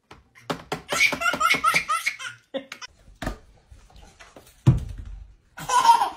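A run of laughter in quick, even ha-ha pulses during the first couple of seconds, then a single dull thump later on.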